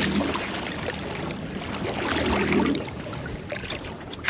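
Water splashing and churning at the boat's side as a hooked mahi-mahi thrashes at the surface and is lifted aboard, with a few sharp knocks near the end.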